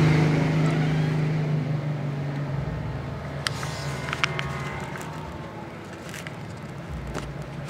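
A steady, low engine-like hum that fades over the first few seconds, with a few short clicks about halfway through.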